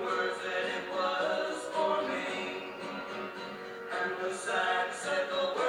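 Music with singing voices, a melody of held notes moving from one pitch to the next.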